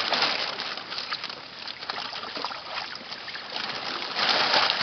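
Water sloshing and splashing, louder for a moment near the end.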